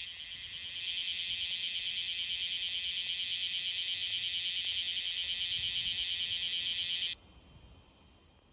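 Bear cicada (Cryptotympana facialis) singing: a loud, rapidly pulsing shrill buzz that wavers briefly near the start, then runs steadily and cuts off suddenly about seven seconds in. It is a newly emerged male whose song the uploader finds still unsteady.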